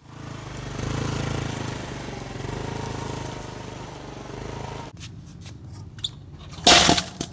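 Small motor scooter engine running steadily as it is ridden, stopping abruptly after about five seconds. Near the end there is a short, loud clatter.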